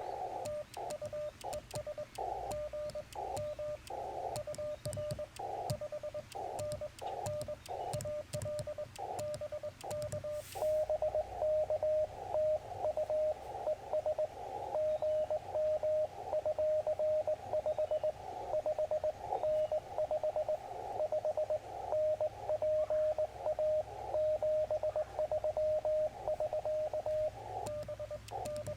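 Morse code (CW) from a Yaesu FT-891 ham radio: one steady pitch keyed on and off in dots and dashes. For the first ten seconds or so the tones come with sharp clicks of the twin-paddle key, as in the operator's own sending. After a click about ten seconds in, a louder stream of Morse comes in over the hiss of the band.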